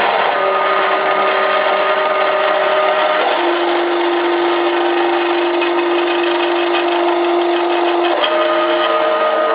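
Small homemade CNC milling machine running: a steady whirring noise with stepper-motor whine on top, holding one pitch and then stepping to a new pitch twice, about three seconds in and again near the end, as the axis moves change speed.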